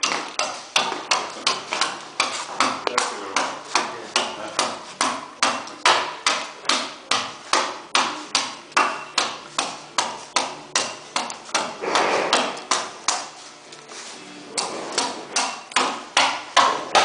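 A hand carving tool chopping into red cedar in quick, regular strokes, about two to three a second. The strokes break off briefly about three quarters of the way through, then resume.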